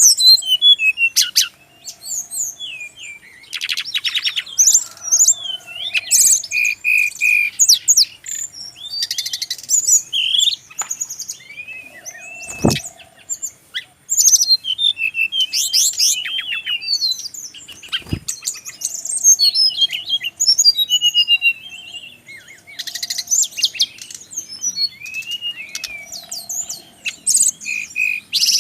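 Brown-chested jungle flycatcher (sikatan rimba dada coklat) singing continuously: a varied run of high whistled phrases, quick trills and twittering note clusters. Two sharp clicks sound partway through.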